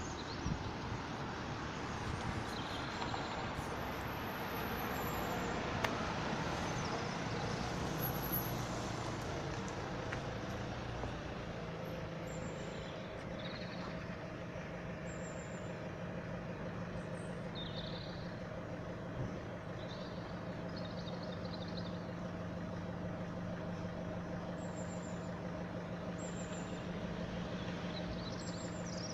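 A road vehicle's engine idling, with a steady low hum that settles in about twelve seconds in over general traffic noise.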